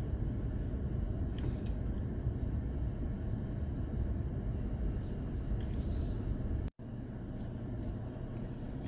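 Steady low rumble of road and engine noise from inside a moving Toyota Tacoma pickup. It cuts out completely for an instant a little before the end, then carries on slightly quieter.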